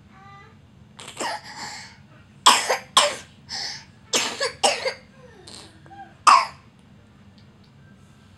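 A child coughing in a fit of about nine coughs over some five seconds, several of them in quick pairs.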